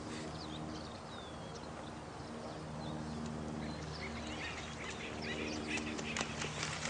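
Nighttime nature soundscape: short bird chirps and calls over a steady rush of running water, with a low steady hum beneath. The chirps and quick clicks grow denser in the last couple of seconds.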